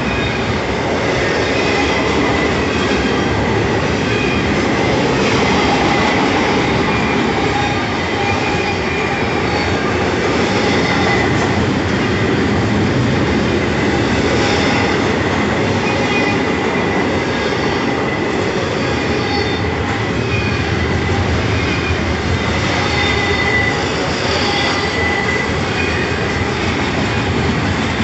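Norfolk Southern double-stack intermodal freight train's well cars rolling past: a steady loud rumble of steel wheels on rail, with short high squeals coming and going.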